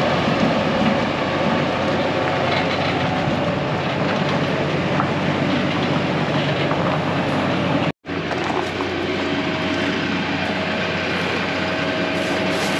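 Heavy diesel equipment working: an engine running under load with dense rattling and clanking, broken by an abrupt cut about eight seconds in, after which a steady engine tone carries on.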